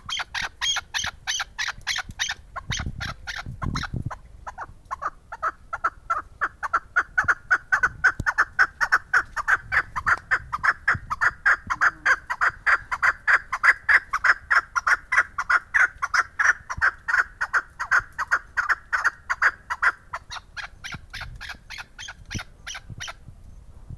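A caged chukar partridge (kaklik) calling, a long run of rapid clucking notes, several a second, that swells to its loudest about halfway through and fades away near the end.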